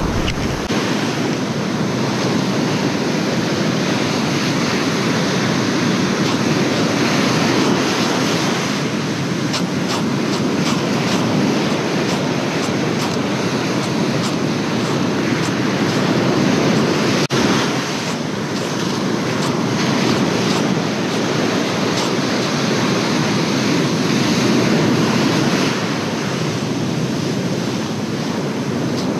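Ocean surf breaking and washing up a sandy beach, a steady roar that slowly swells and eases, with wind buffeting the microphone.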